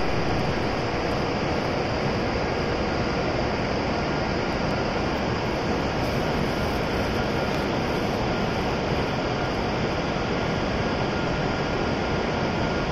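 Steady rushing ambience of a station platform at a shinkansen station, an even noise with a faint steady hum running through it and no distinct events.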